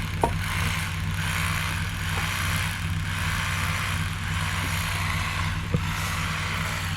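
A delivery vehicle's engine idling steadily, with a couple of faint clicks.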